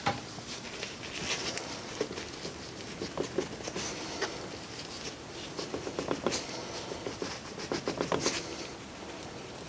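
Gloved fingers spreading wet fire cement over the inside lining of a small steel forge: quiet, irregular scraping and rustling with small clicks, coming in short bunches.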